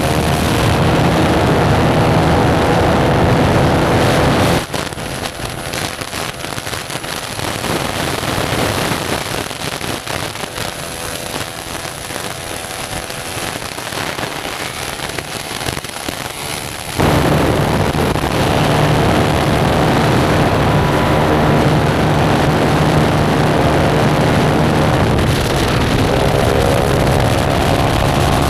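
Motorcycle running hard with no exhaust silencer fitted, a loud raw engine note. About four and a half seconds in it drops abruptly to a quieter, noisier rush, and about seventeen seconds in the loud engine note comes back just as suddenly.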